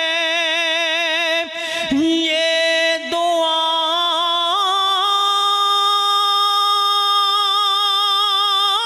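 A man singing a naat, unaccompanied, with ornamented wavering notes. There is a short break about a second and a half in, then one long held note.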